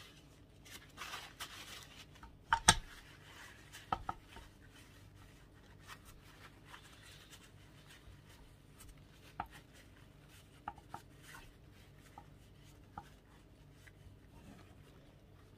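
Paper towel rustling and the metal parts of a disassembled bench grinder being handled while grease is wiped off, with one sharp knock a little under three seconds in, a smaller double knock about a second later, and scattered light clicks after that.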